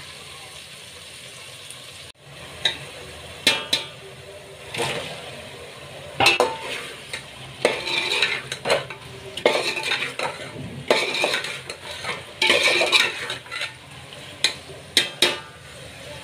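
A metal spoon stirring chicken pieces into frying tomato masala in a metal pot, scraping and clattering against the pot in many irregular strokes from a couple of seconds in, over a steady low sizzle.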